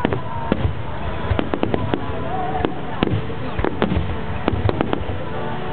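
Aerial fireworks shells bursting in rapid, irregular succession: a dense string of sharp bangs, several per second.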